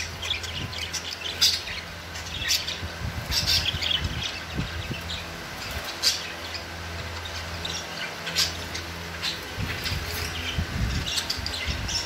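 Budgerigars chirping and chattering in a quick scatter of short, high calls, with a steady low hum underneath.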